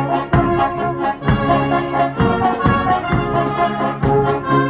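Brass band playing a march: sustained brass chords over a steady, regular drum beat.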